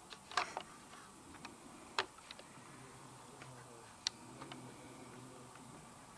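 Faint scattered clicks and ticks over a quiet background: a small cluster just under half a second in, a sharp click at about two seconds, and another about four seconds in.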